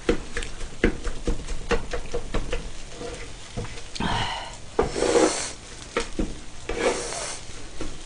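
A wooden spatula and a spoon stir and scrape fried rice on a hot grill pan, with many short clacks and scrapes of the utensils on the pan. The rice sizzles in bursts about four, five and seven seconds in.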